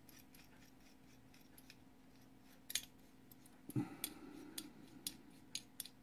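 Faint, scattered sharp metallic clicks with a short spell of light scraping, starting about two and a half seconds in, as the adjustment screw is worked into a Dillon XL650 powder measure with a small ratcheting wrench.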